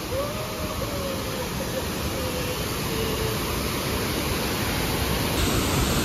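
Waterfall cascading over rock terraces: a steady, even rush of falling water.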